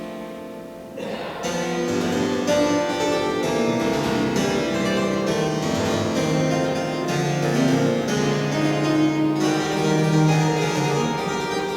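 Church pipe organ playing: a sustained chord dies away in the reverberation, then about a second in a new phrase starts with many overlapping held notes.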